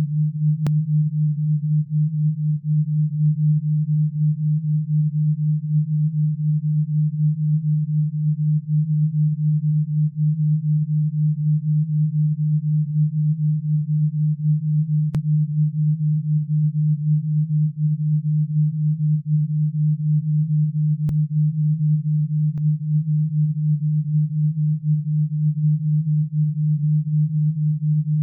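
Synthesised alpha-wave binaural-beat tone: a steady low pure tone whose loudness pulses quickly, the beat set in the 8–12 per second alpha range. A few faint clicks are scattered through it.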